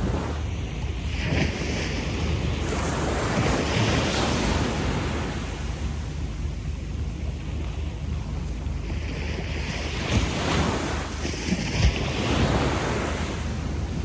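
Small waves washing up on a sandy beach and drawing back, the surf swelling twice, about a second in and again about ten seconds in, over a steady low rumble of wind on the microphone.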